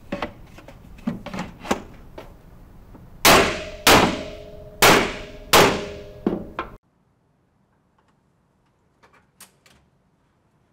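Mallet blows seating a drawer bottom into a Grass ZBox metal drawer frame: a few light knocks, then four sharp strikes a little under a second apart, each leaving a brief metallic ring from the frame.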